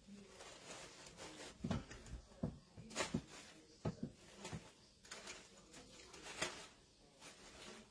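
Faint, irregular rustling and crinkling of wired ribbon and starched cotton fabric strips as hands fluff and arrange a ragbow on a deco-mesh wreath.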